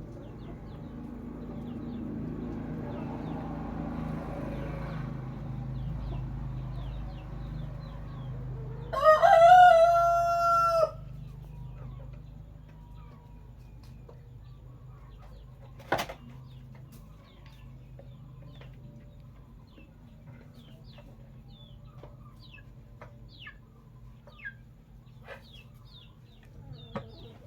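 A rooster crows once, a loud call of about two seconds some nine seconds in that rises and then holds its pitch. Short high chirps are scattered through the rest, with a single sharp click midway.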